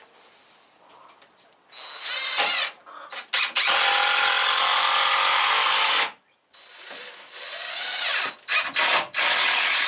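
Power drill running in bursts: its motor spins up with a rising whine, gives a few short trigger blips, runs steadily for a couple of seconds, stops about six seconds in, then spins up again and runs on near the end.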